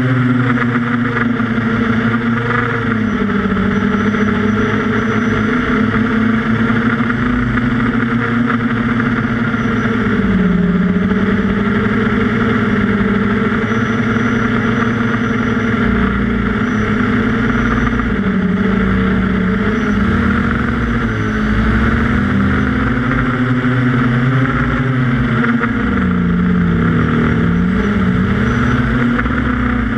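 QAV400 quadcopter's electric motors and propellers buzzing in flight, picked up by a camera on the craft. The pitch dips and rises every few seconds as the throttle changes.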